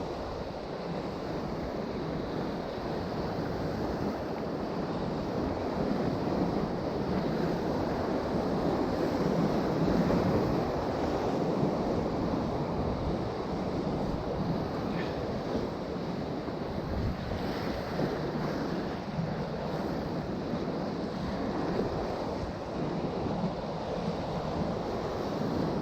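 Ocean surf washing against a rocky shore, a steady rush that swells a little about ten seconds in, with wind buffeting the microphone.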